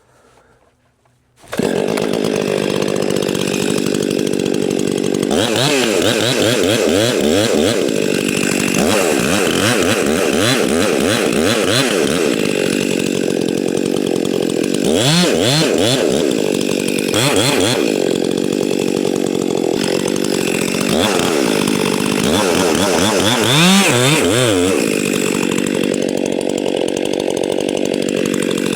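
Stihl MS 261 two-stroke chainsaw running at high revs, coming in abruptly about a second and a half in. Its pitch dips and recovers again and again, as the chain bogs down under load while cutting into the tree.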